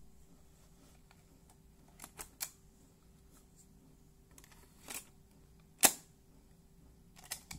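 Plastic clicks from a Sanyo M4440 cassette Walkman being loaded: its cassette door opening, a tape going in, the door snapping shut about six seconds in (the loudest click), then the play key being pressed near the end. The clicks are few and spaced apart.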